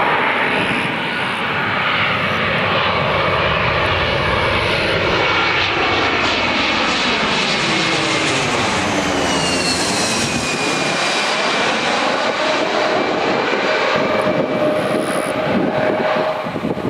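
Airbus A321-200 jet airliner on final approach, landing gear and flaps down, passing low overhead. Its steady jet rush is joined by an engine whine that drops in pitch about halfway through as the plane goes over and moves away.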